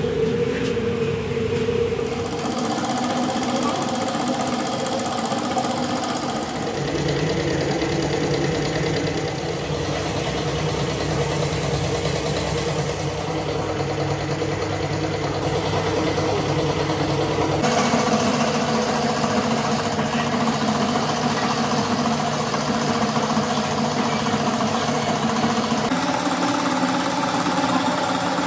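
Machinery running with a steady motor hum made of several tones, its pitch and tone changing abruptly a few times.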